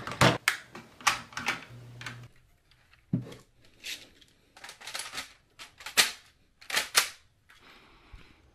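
Mould King plastic building bricks clicking as they are pressed together, a quick run of sharp clicks over the first two seconds. Then, after a pause, scattered louder plastic clacks as the assembled brick-built P90 model is handled.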